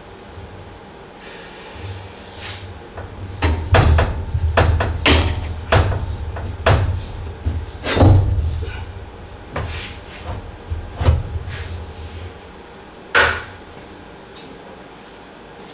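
Irregular knocks and clanks of steel roll-cage tubing being handled and worked into place inside a stripped car body, about a dozen over ten seconds with a dull low rumble beneath, ending in one sharp knock.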